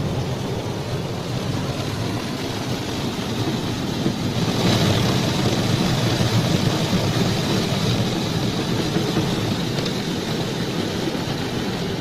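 Automatic car wash heard from inside the car's cabin: a steady muffled rushing of the wash machinery and water on the bodywork. It grows louder about four seconds in, with a faint high whine, then eases a little.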